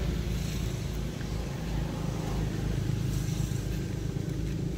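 A motor vehicle engine running steadily, a low even hum with no change in speed.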